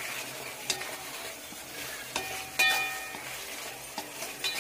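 Chopped tomatoes and masala sizzling in a metal pan while a ladle stirs them, scraping and clinking against the pan. The loudest clink, about two and a half seconds in, rings briefly.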